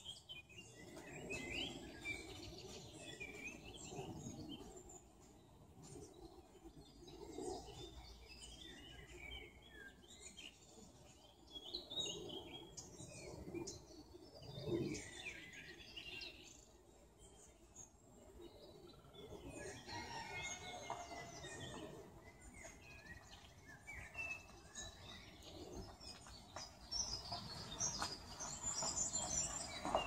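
Several songbirds chirping and singing in woodland, short calls and warbled phrases overlapping throughout, with a quick high trill near the end. Underneath is a faint low background rumble.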